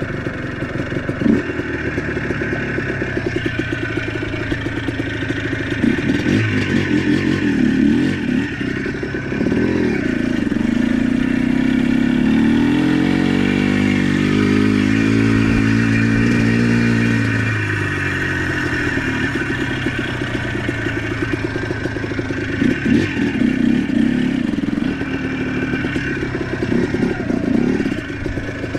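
ATV engine running, with clattering. Its pitch rises and holds higher for several seconds about a third of the way in, as it revs under load, then drops back.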